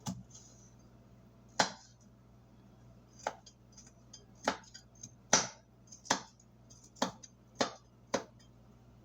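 Kitchen knife chopping on a cutting board: about nine separate, sharp chops at an uneven, unhurried pace.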